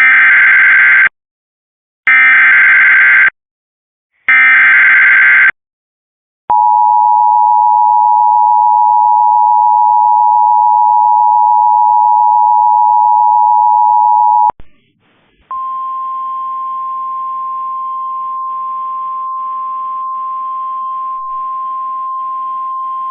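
Emergency Alert System warning tones. Three short bursts of the SAME digital data header come first, then the steady two-tone EAS attention signal for about eight seconds. About a second later a single steady, slightly higher alert tone begins, with a faint hiss beneath it.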